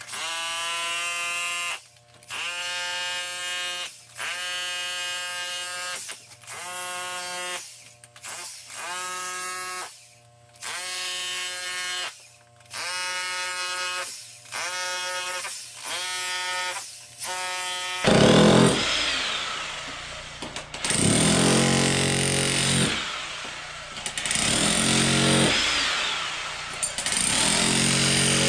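Handheld electric concrete saw cutting into concrete, run in short bursts of about a second and a half with brief stops between them. After about 18 seconds come longer and louder cuts of two to three seconds each, with more grinding noise.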